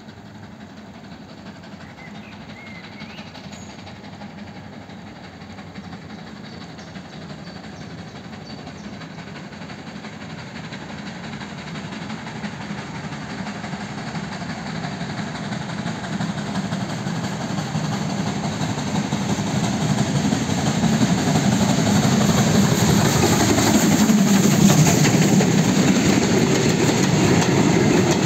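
Steam locomotive 555.0153, a rebuilt ex-German class 52 2-10-0, approaching with a train of heritage carriages. Its sound grows steadily louder until it passes close by near the end, and then the carriages roll past with their wheels rumbling on the rails.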